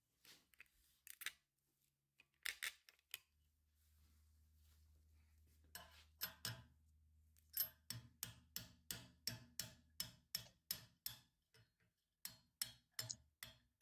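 Faint hammer taps on a pin punch driving the hinge pin out of a 1963 Chevrolet Impala door hinge held in a vise. A few scattered taps come first, then a steady run of about three taps a second, then a few more near the end.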